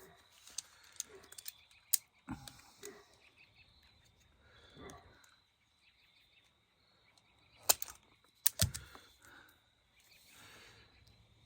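Scattered clicks and knocks of hand tools handling an electrical cable while it is stripped and cut back. The loudest are a few sharp clicks close together about eight seconds in, with faint rustling between.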